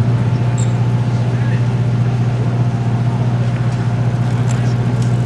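Car engine idling steadily close by, a loud, even low hum, with faint voices in the background.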